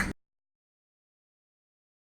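The harsh caw of a crow cuts off abruptly just after the start, followed by dead silence.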